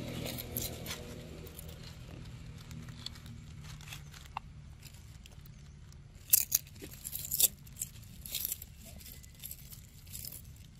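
Dry fallen leaves crackling and rustling as a long-tailed macaque crouches over a mango, biting and tearing at the fruit. The sharp crackles come in a cluster about six to eight and a half seconds in, with a few more near the end.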